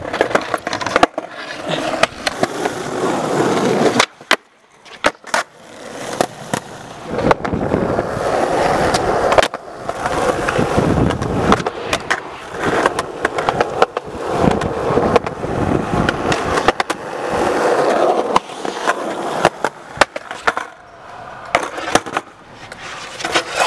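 Skateboard wheels rolling over concrete, with sharp clacks of the board popping and landing; the sound breaks off briefly a few times between takes.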